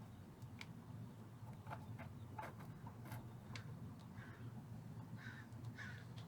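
Faint, scattered clicks and light scrapes of a soldering iron and desoldering tool working the solder joints on a vintage tube amp chassis, over a steady low hum.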